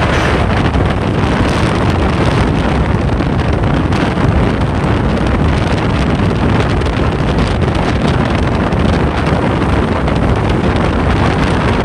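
Steady wind rushing over the microphone, with road and engine noise from a vehicle travelling at speed.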